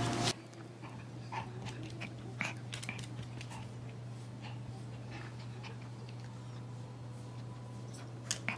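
Pomeranian dog panting faintly in short, irregular soft breaths, over a low steady hum.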